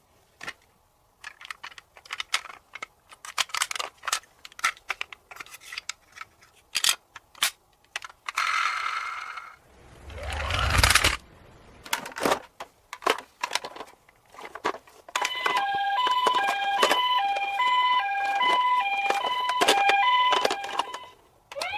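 Hard plastic toy cars clicking and rattling as they are handled. About halfway through comes a rising whoosh. In the last third a battery-powered toy plays a repeating electronic beeping tune of alternating high and low notes.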